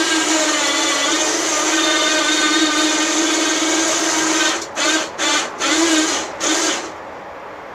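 Electric winch running steadily as it pulls a log along the sawmill bed, then jogged in about five short bursts to inch the log into place before it stops.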